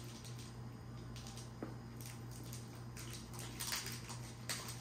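Quiet eating sounds of people chewing a chocolate bar, with a few soft clicks and crackles, over a steady low hum.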